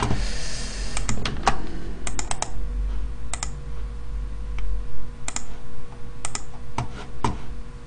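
Computer keyboard being typed on: scattered keystrokes, a few at a time with short pauses between, as data is entered into a spreadsheet.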